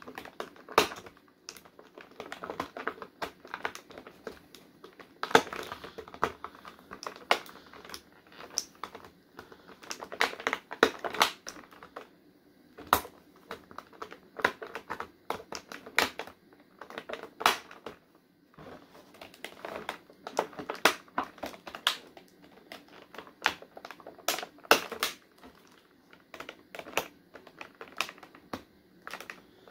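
Twist ties on a toy figure's packaging snapping one after another: a long, irregular run of sharp snaps and clicks, with plastic packaging rustling between them.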